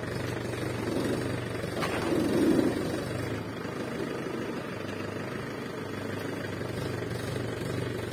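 Tractor diesel engine running steadily, with a brief louder swell about two seconds in.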